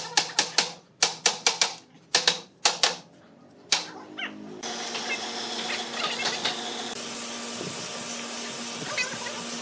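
A quick run of sharp knocks on wood, three or four a second in short bursts, typical of cabinet assembly work. About four seconds in they stop, and a steady hiss with a low hum from a running machine takes over.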